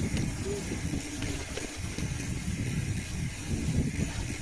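Wind buffeting the microphone of a moving rider: an uneven low rumble under a steady hiss.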